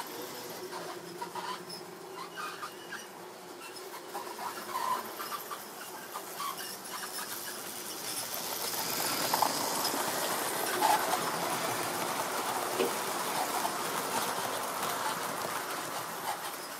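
Tri-ang model train running on the layout's track: a small electric motor whirring and wheels clicking on the rails, growing louder about halfway through. Light clicks and knocks come from the model rolling stock being handled.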